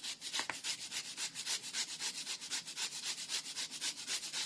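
Turnip flesh being grated by hand: quick, even rasping strokes, several a second.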